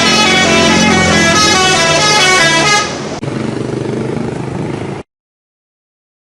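A bus 'telolet' horn, a multi-tone horn playing a quick tune of short stepping notes, loud for about three seconds. It then drops to a quieter noisy rumble and cuts off abruptly to silence about five seconds in.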